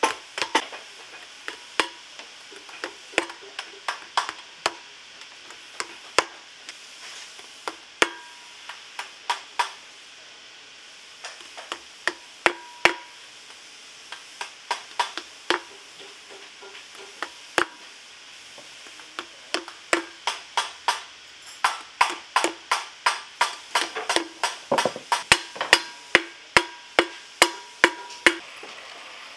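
Shoemaker's hammer tapping tacks through a leather sole into a boot on a last: a long run of sharp, irregular taps, many ringing briefly. The taps come faster near the end, about two or three a second.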